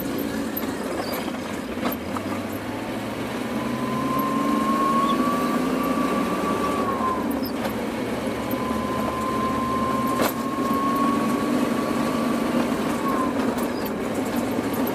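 Truck engine heard from inside the cab, pulling under way, with a whine that climbs slowly for several seconds and then drops away, twice. A couple of sharp clicks sound along the way.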